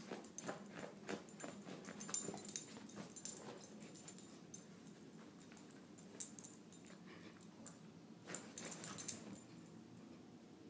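Boston Terrier scratching and digging at a fabric couch cushion with its paws, fluffing its bed: quick bursts of scratching and rustling, loudest about two seconds in and again near the nine-second mark.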